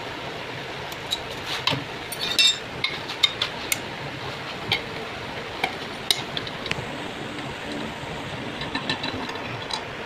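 Scattered sharp metallic clicks and clinks of a spanner working loose the gear shift lever on a Honda CG 125 engine. The loudest come a couple of seconds in and again about six seconds in.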